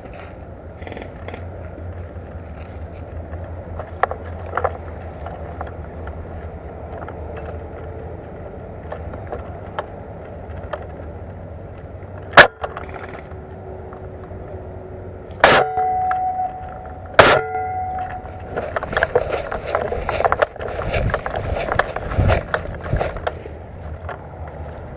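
Three single airsoft gun shots, sharp cracks a few seconds apart, the last two with a short metallic ring after them. Then several seconds of dense rustling and crackling.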